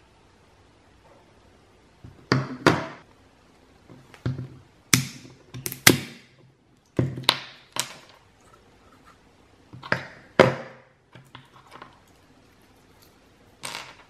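A walnut shell being cracked in the grip of multi-function kitchen scissors. About a dozen sharp cracks and crunches, several in quick pairs.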